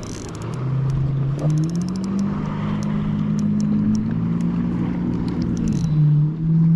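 Motorboat engine running steadily; its pitch rises about a second and a half in and drops again near the end. Scattered light clicks are heard over it.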